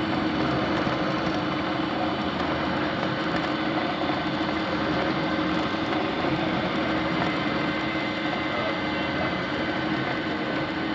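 3D printer running mid-print: a steady mechanical hum and whine with several held tones, from its motors and fans.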